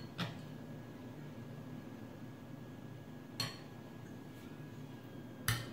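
Metal forks clinking lightly against a glass bowl while a biscuit is turned and lifted out of melted white chocolate: three short clinks a couple of seconds apart.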